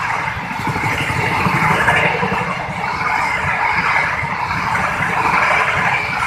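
Argo Bromo Anggrek express passenger coaches passing close by at speed: a steady rumble and hiss of steel wheels running on the rails.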